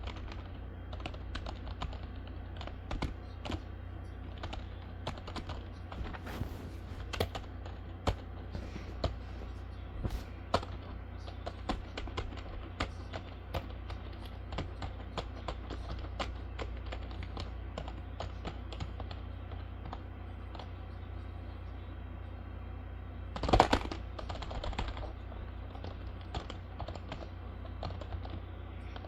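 Computer keyboard keys being typed on, giving irregular clicks with a louder clatter of keystrokes about three-quarters of the way through, over a steady low hum.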